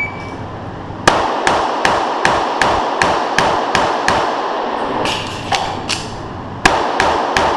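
Rapid strings of .45 ACP pistol shots from a Springfield Armory 1911, about one shot every 0.4 s, echoing in an indoor range, with a short pause about four seconds in before the firing resumes. The electronic shot timer's start beep ends just as it begins.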